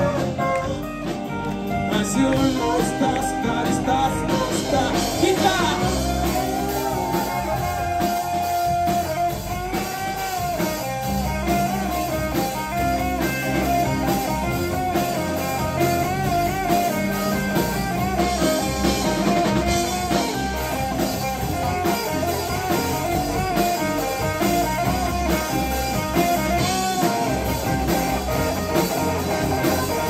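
Live rock band with electric guitars, bass guitar and drum kit playing an instrumental passage, a lead line with bent, wavering notes carrying the melody over the band.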